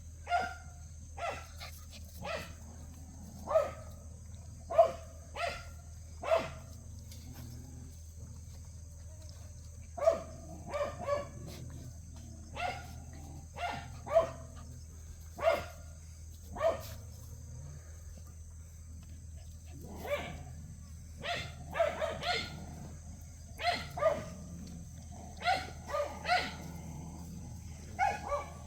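Young Jindo dog giving short, high-pitched barks over and over, about one a second, in runs broken by a couple of pauses of a few seconds. Faint steady low hum underneath.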